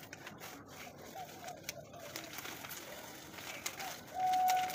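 Pigeons cooing in the background while a plastic bag crinkles and caustic soda powder is poured into a steel mixer-grinder jar, with faint crackles. Just before the end, a short steady tone lasting about half a second is the loudest sound.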